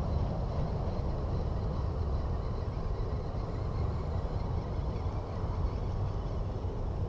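Steady low rumbling noise of wind on the camera's microphone, with no distinct events.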